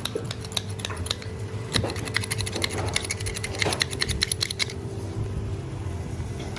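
Quick, irregular metallic clicking and tapping of a utensil against the pan as the fava beans are stirred and mashed, stopping about three-quarters of the way through, over a steady low hum.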